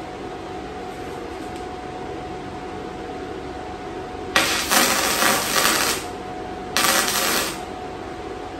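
Welding arc crackling in two short bursts, the first about four seconds in and lasting over a second, the second briefly soon after: tack welds fixing nuts to a steel faceplate. A steady hum runs underneath.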